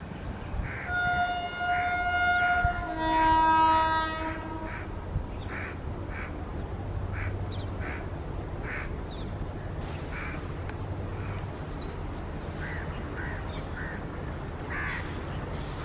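Electric locomotive horn sounding a two-note blast for about four seconds as the train approaches, over a steady low rumble. Crows then caw repeatedly, about once a second.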